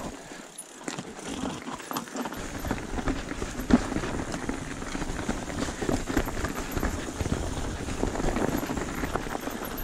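Mountain bike descending a stony forest singletrack: tyres crunching over dirt and loose stones, with the chain and frame rattling and irregular knocks from bumps, the sharpest about four seconds in.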